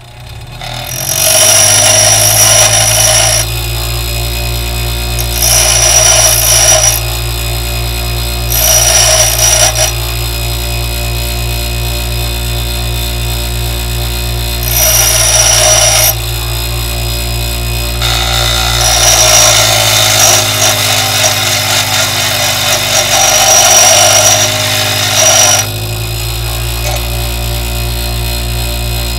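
Bench grinder spinning up at the start, then running with a steady hum while a spade drill bit's cutting edges are pressed against the grinding wheel to sharpen them. The wheel grinds the steel in short hissing passes of one to three seconds each, then one longer pass of about seven seconds near the end, during which the motor's hum sags slightly under the load.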